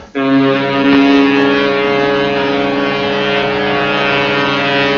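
Ship's horn sounding one long, steady blast.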